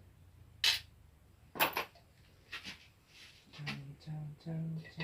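Two short clicks about a second apart, then low, murmured voice sounds in the second half.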